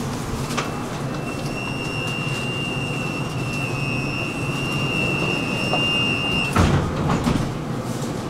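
Tram in motion: a steady rumble from the running gear, with a high-pitched squeal that sets in about a second in. The squeal holds steady for several seconds, then cuts off suddenly with a loud clunk near the end.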